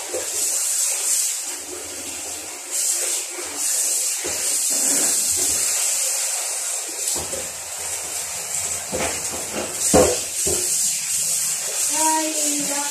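Irregular rubbing and scraping as raw meat is worked by hand in a basin of marinade, with a few knocks, the loudest about ten seconds in. A faint voice comes in near the end.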